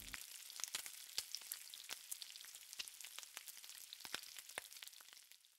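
Faint sizzling of food frying, with scattered crackling pops; it fades and stops near the end.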